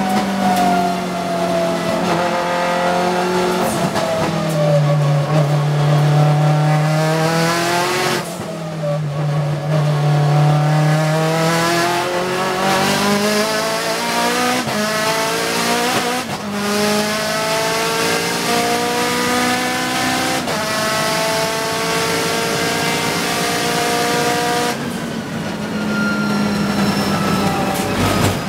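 Mitsubishi Lancer Evolution time-attack car's turbocharged four-cylinder engine, heard from inside the stripped race cabin at full throttle on a flying lap. Its pitch climbs again and again through the gears, falling sharply under braking and downshifts a few times before pulling up again.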